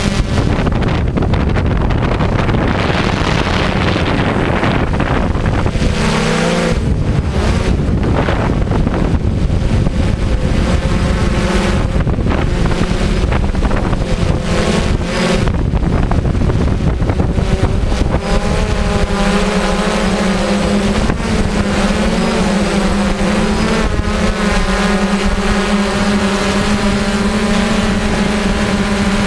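DJI quadcopter's electric motors and propellers buzzing steadily, close to the on-board camera, with wind buffeting the microphone. The pitch wavers up and down from about two-thirds of the way in as the drone manoeuvres.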